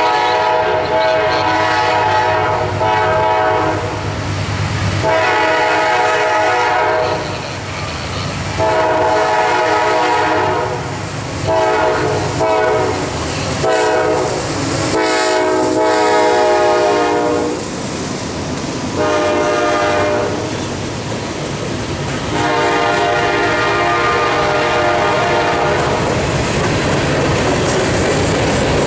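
A GE CW40-8 diesel locomotive's air horn sounding about ten blasts of varied length, some short and some long, as a playful horn show from a passing CSX freight. The horn stops about 26 s in, leaving the clatter of the train's wheels.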